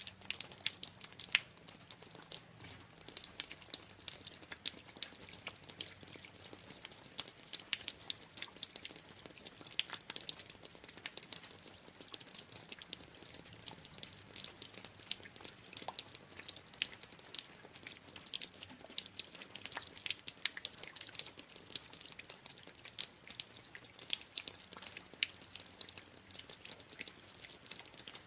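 Water dripping: many small drops landing in quick, irregular succession, each a short sharp tick.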